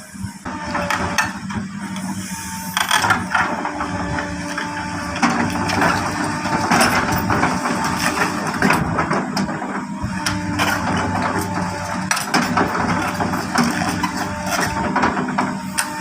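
Excavator's diesel engine running under load, with a steady hum, and irregular knocks, clanks and crunching as its bucket digs and stamps down soil.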